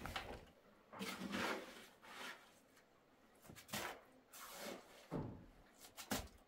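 A series of separate knocks and short scrapes of objects being handled, about six in all, some brief and some lasting around half a second.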